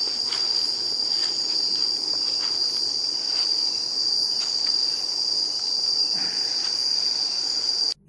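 Steady, high-pitched shrill of night insects in the forest, an unbroken drone with a few faint rustles under it; it cuts off abruptly at the very end.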